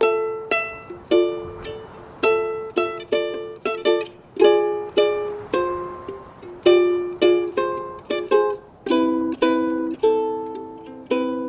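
A plucked string instrument playing chords in an even rhythm, about two strokes a second, each ringing out and fading; lower notes join about nine seconds in.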